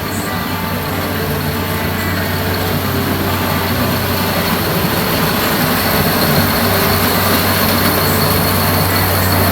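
Heavy harvesting machinery running: a steady low engine hum under a loud mechanical rush, slowly growing louder.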